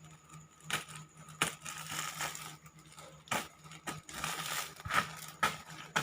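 Parcel packaging being handled while it is opened: a quiet rustle broken by a handful of sharp crackles and clicks at irregular intervals.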